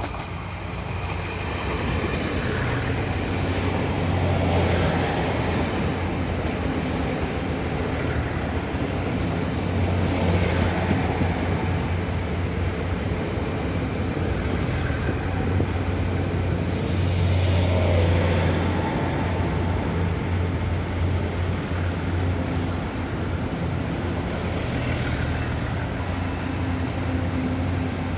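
A Taiwan Railways diesel multiple unit express running slowly into a station, its diesel engines humming low and steady and swelling a few times as the cars roll by. Short hisses of air come twice about ten seconds in, and a longer one about two-thirds of the way through.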